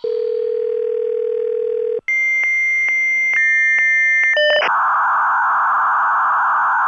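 Dial-up modem connecting: a steady telephone dial tone for about two seconds, then after a brief break the answering modem's high tones with regular clicks, giving way about four and a half seconds in to the steady hissing static of the handshake.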